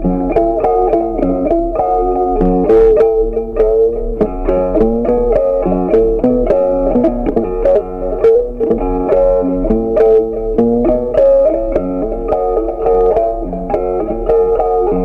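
Background instrumental music on guitar: a quick, steady run of plucked notes.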